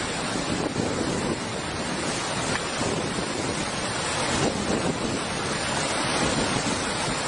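Steady rush of a fast-flowing flooded river churning around a half-submerged vehicle, with wind buffeting the microphone.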